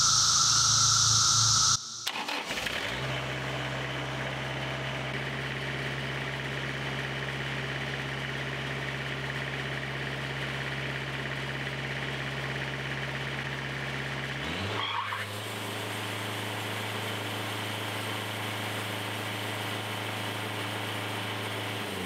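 A loud steady hiss cuts off about two seconds in. The Wood-Mizer band sawmill's engine then starts, rises and settles into a steady run, and its pitch shifts slightly about two thirds of the way through.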